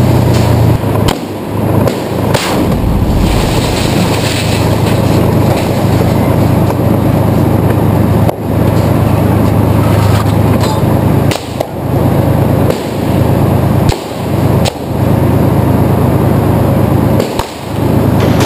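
Loud, distorted street-battle noise: dense, rapid gunfire with several sharp, heavy bangs.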